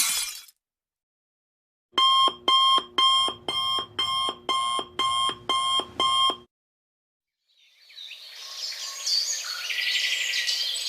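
Electronic alarm clock beeping, about ten short, even beeps at a little over two a second. After a pause, a chorus of chirping birds fades in.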